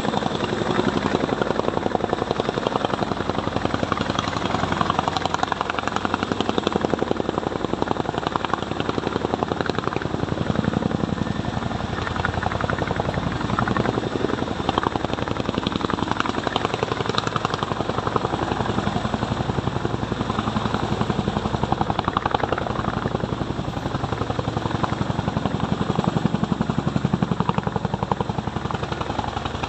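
Army helicopter running close by: the steady, rapid beat of its rotor blades over engine noise.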